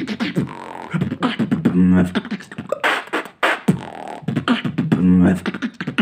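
Solo beatboxer performing a routine: sharp mouth-percussion hits with a low hummed bass note held briefly twice, in a groove that repeats about every three seconds.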